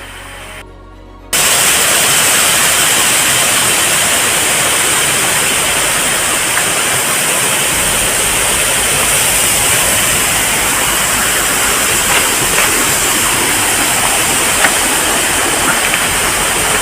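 Waterfall's falling water rushing loudly and steadily at close range. It begins abruptly a little over a second in, after a quieter stretch.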